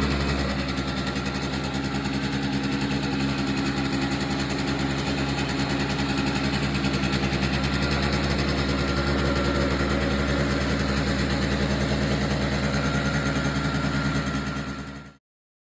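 1989 Yamaha Zuma scooter's two-stroke single-cylinder engine idling steadily, then cutting off suddenly near the end.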